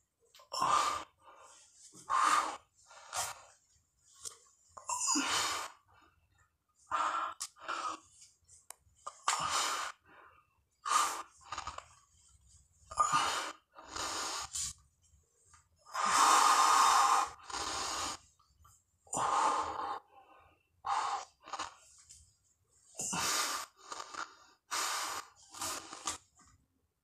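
A man's heavy, gasping breathing while doing push-ups: short puffs of breath, often in pairs, about once or twice a second, with one longer, louder breath about two-thirds of the way through.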